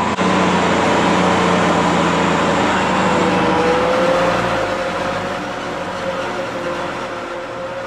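Forage harvester running steadily while chopping corn: a loud machine drone with several held tones. There is a sharp click right at the start, and about four seconds in the deepest hum drops away while a mid tone slides down a little and then holds steady.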